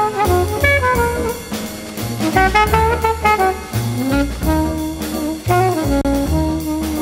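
Jazz with brass horns, bass and drums, played back from a cassette on a Pioneer CT-939 deck and recorded straight from the deck's output.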